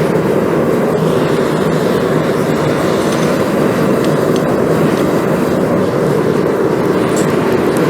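Bladesmithing forge running with a loud, steady rushing noise while a Damascus billet heats up to forging temperature.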